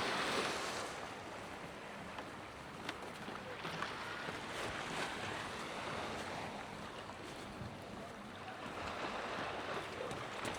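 Sea waves washing ashore, swelling and easing every few seconds, with a light breeze on the microphone.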